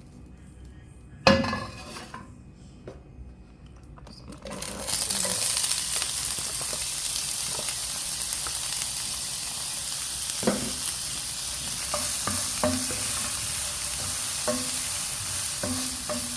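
Chunks of chicken sizzling in hot oil in a frying pan. The sizzle starts suddenly about four and a half seconds in and then holds steady, with a utensil clinking against the pan now and then as it is stirred. Before that there is one loud clank of a pan or utensil, about a second in.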